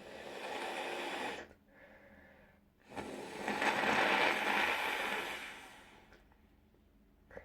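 A congested person with a cold blowing their nose into a tissue: one short blow, then a longer, louder blow starting about three seconds in that tails off near six seconds.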